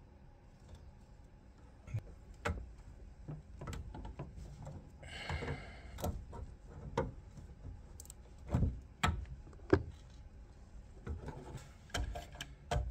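Wrenches and brass pipe fittings clicking and knocking at scattered moments as a threaded valve fitting on a copper pipe is tightened, with a short scraping rasp about five seconds in.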